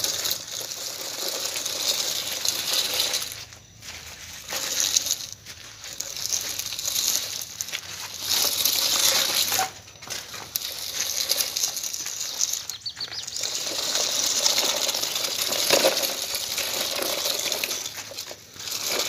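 Toy log truck's plastic wheels rolling and grinding over gritty, gravelly dirt: a hissing crunch that stops briefly several times as the truck moves in spurts.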